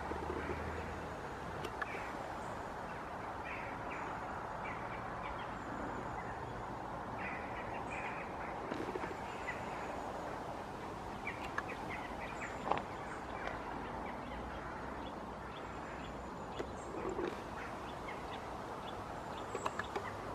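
Birds chirping and calling in short, scattered notes over a steady rushing background noise, with a few sharp clicks, the loudest about thirteen seconds in.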